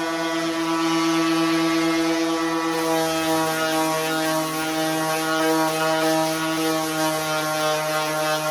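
Electric orbital sander running steadily with fine-grit paper on a wooden rifle stock: a constant motor hum over a sanding hiss. Its tone shifts slightly about three seconds in.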